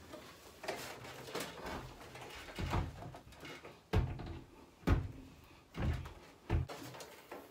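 Knocks and clunks of a Vokera Vision Plus 35C combi boiler being hung on its wall bracket: about five louder thumps roughly a second apart, with smaller clicks between them.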